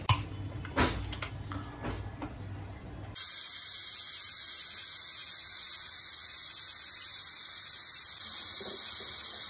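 Aluminium pressure cooker on a gas flame venting steam at its weight valve: a loud, steady, high hiss that starts abruptly about three seconds in, after a few faint metal clicks. This is the cooker's whistle, the sign that it has come up to pressure.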